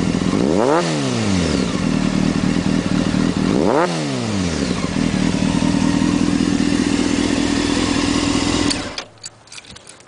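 Honda CBR600 F4i inline-four engine running through a shotgun exhaust, idling with two quick throttle blips a few seconds apart, each rising sharply in pitch and falling back. Near the end the engine stops suddenly, leaving a few faint clicks.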